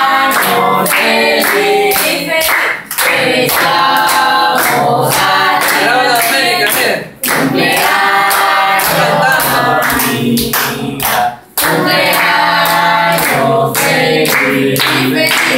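A group of people singing a birthday song together, clapping along in rhythm.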